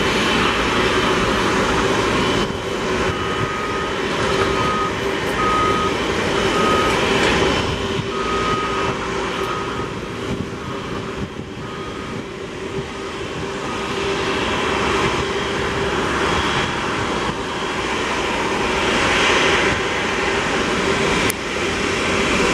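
Airbus A330 freighter's jet engines running at taxi power: a steady whine over a continuous rushing noise. Through the first half, short beeps from a vehicle's reversing beeper sound about once a second.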